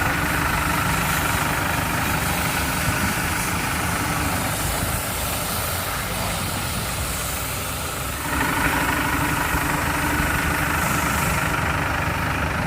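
MWM diesel engine of a pickup idling steadily with a rapid diesel clatter, running well. The sound drops slightly for a few seconds in the middle and comes back fuller about eight seconds in.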